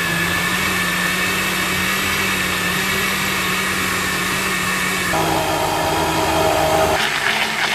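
Electric countertop blender running steadily, puréeing bell peppers with liquid in its glass jug. The motor's note shifts about five seconds in and again near the end.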